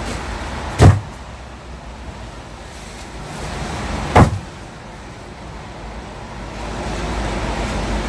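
Two heavy thuds, about a second in and again about four seconds in, as mesh bags of split firewood are dropped onto a wooden deck. A steady low vehicle rumble runs underneath and grows louder toward the end.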